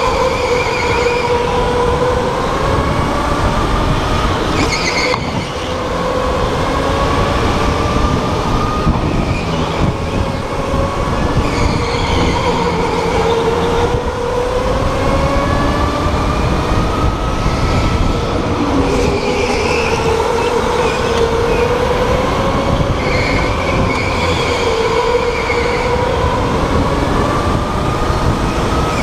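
Electric go-kart at racing speed, its motor whine rising and falling in pitch as it speeds up and slows, over a steady low rumble. Every few seconds the tyres squeal briefly through the corners.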